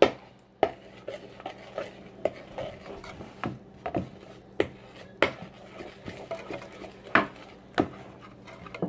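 A utensil clinking and scraping against a bowl while stirring slime, in irregular sharp knocks every half second or so.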